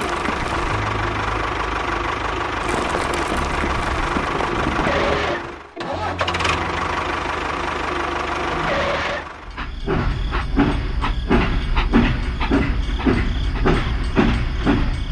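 Tractor engine running. It cuts and changes twice, and from about nine seconds in it settles into a rhythmic chugging at about three beats a second.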